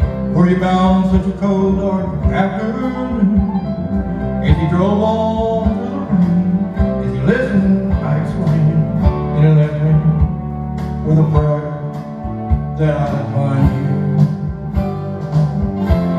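Music: a country-style backing track with guitar, and a man singing along over it.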